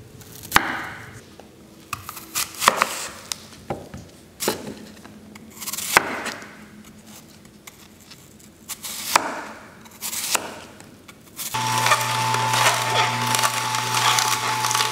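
Chef's knife chopping broccoli and then apple on a ridged wooden cutting board: sharp knocks of the blade on the wood, singly and in short runs of two or three. About twelve seconds in, a louder steady hum with a held tone starts, from the Omega juicer motor.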